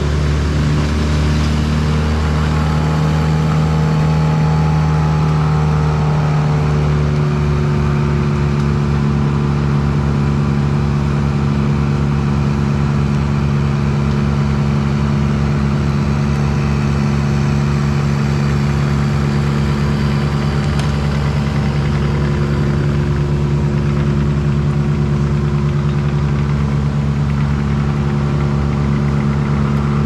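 Bandit wood chipper running hard at full throttle, a loud steady engine drone. A faint wavering whine drifts in pitch over the first several seconds.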